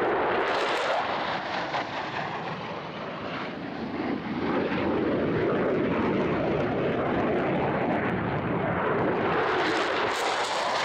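Low-level USAF F-15E Strike Eagle fighter jet passing through a valley, its twin turbofan engines making a loud, continuous roar. The roar sweeps in pitch as the jet passes, eases slightly about three seconds in, then swells again near the end.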